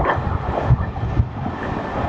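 Wind buffeting the microphone in uneven gusts over the dying rumble of a receding train.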